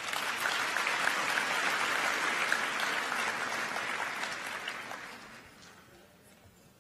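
A large audience applauding, with dense clapping that dies away about five seconds in.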